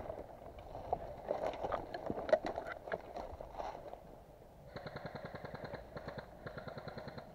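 Airsoft electric gun firing two rapid full-auto bursts in the second half, the first about a second and a half long and the second shorter. Before them come irregular knocks and clicks.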